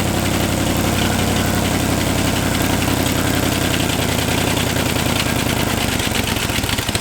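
Chevrolet 283 small-block V8 running on only one cylinder head (four cylinders), idling with a light tick that the crew puts down to the lifters. The engine starts to die in the last second.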